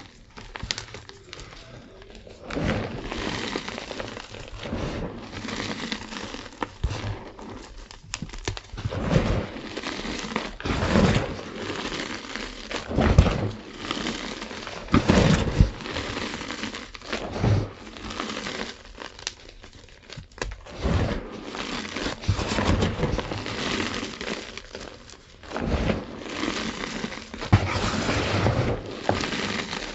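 Blocks of gym chalk being crushed and crumbled, a continuous run of dry crunches and crackles with sharper snaps and a louder crunch every second or two.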